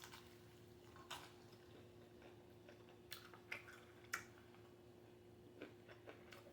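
Faint chewing with a few soft mouth smacks and clicks, from someone eating spicy sauce-covered chicken legs.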